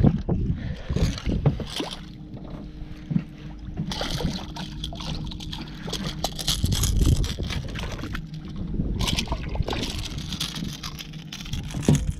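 A hooked jack splashing and thrashing at the surface beside a fibreglass skiff, in irregular bursts, with water lapping at the hull and a sharp knock near the end.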